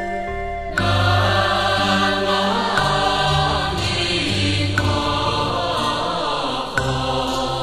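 Pure Land Buddhist chanting of Amitabha Buddha's name (nianfo) sung to a slow melody. The long held notes change about every two seconds, each change starting with a small sharp attack.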